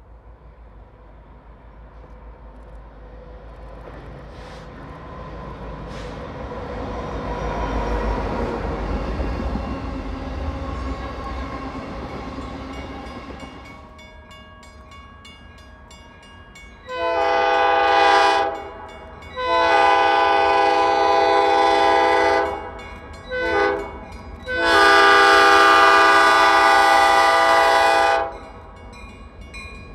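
Diesel freight train rumbling past, swelling and then fading over about thirteen seconds. After that, an Everett Railroad diesel locomotive's multi-tone air horn sounds the grade-crossing signal: long, long, short, long.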